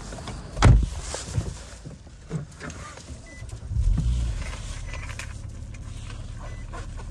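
Car door shutting with a heavy thump about half a second in, a few key jingles, then the 2013 Nissan Maxima's 3.5-litre V6 cranking and catching about four seconds in and settling into a steady idle.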